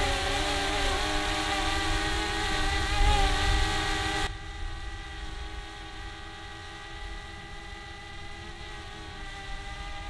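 DJI Mavic Mini drone hovering overhead, its propellers making a steady whine of several pitches over a low rumble. About four seconds in, the sound drops suddenly to a quieter, duller hum as the drone is heard from 100 feet up instead of 25.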